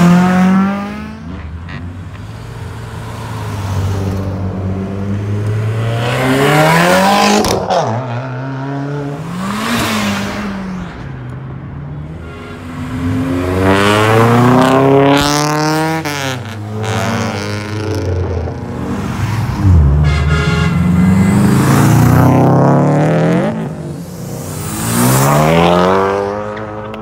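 Car engines revving hard and accelerating away in repeated loud pulls, each climbing in pitch and then dropping off, with steadier lower engine running between the pulls.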